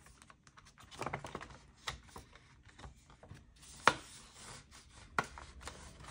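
Paper bills and cash envelopes being handled: soft rustling with a few sharp taps, the loudest about four seconds in and another just over five seconds in.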